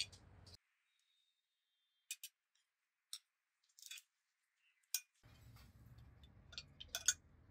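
Scattered light clinks and taps of cutlery against dishes, a few separate strikes with pauses between them.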